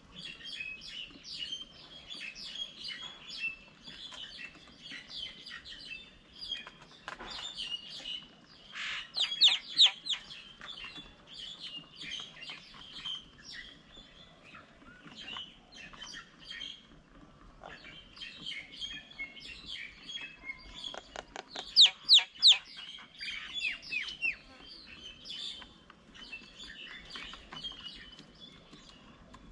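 Several birds chirping in many short, high calls, with two louder bursts of rapid calls, about ten seconds in and again about twenty-two seconds in.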